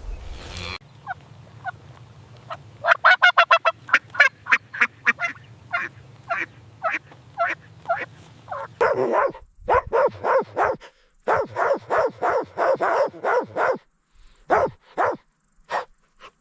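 Farm waterfowl calling in quick series of short, separate calls, at times about four a second. A cut about nine seconds in brings a louder, denser run that stops near the end, leaving a few single calls.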